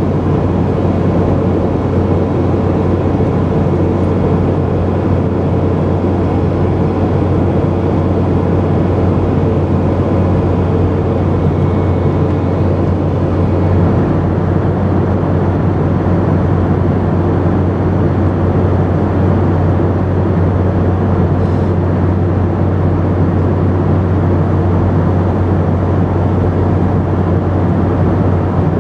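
Steady cabin noise of a Boeing 717 in flight: the even drone of its tail-mounted Rolls-Royce BR715 turbofans mixed with rushing airflow, with a strong low hum underneath.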